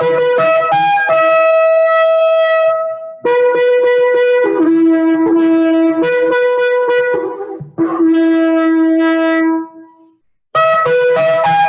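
A long spiral-horn shofar blown: quick short notes alternating between two pitches, then long held blasts, one dropping to a lower pitch, with brief breaks between them, and the quick alternating notes starting again near the end.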